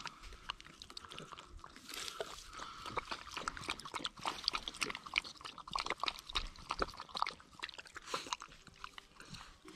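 A miniature schnauzer chewing something crunchy: a stream of irregular crunches and clicks.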